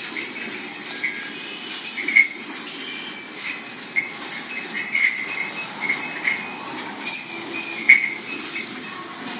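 Milk squirting from a cow's teats into a pail during full-hand milking, in uneven short spurts.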